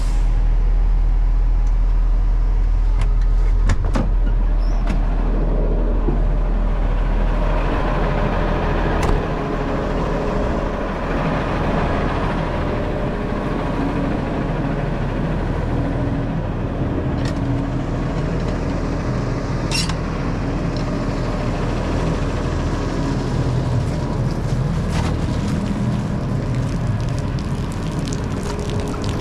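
Peterbilt concrete mixer truck's diesel engine running steadily. There is a clunk about nine seconds in, after which the deep rumble is lower.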